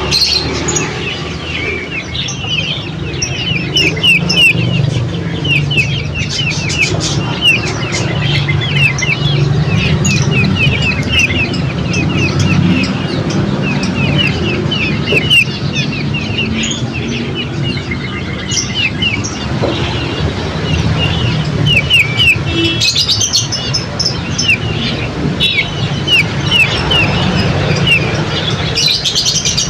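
Small songbirds chirping continually: a rapid series of short, falling chirps, with a steady low rumble underneath.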